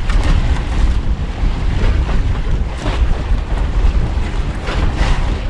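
Wind buffeting the microphone at sea, a heavy low rumble mixed with the wash of waves, with louder splashing gusts every second or so. The noise drops away suddenly at the very end.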